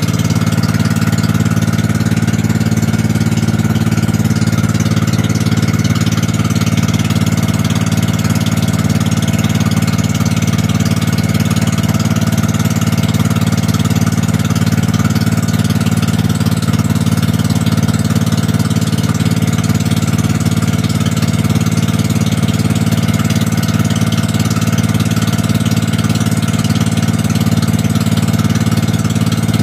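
Engine of a motorized outrigger pumpboat running steadily while under way: a loud, even drone that holds the same pitch throughout.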